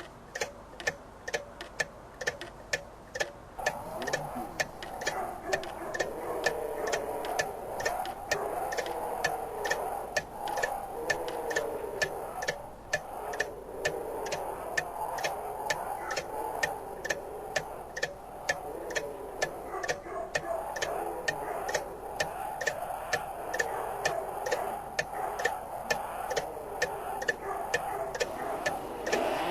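Steady, even ticking, about two ticks a second. From about four seconds in, a wavering mid-pitched sound runs underneath it.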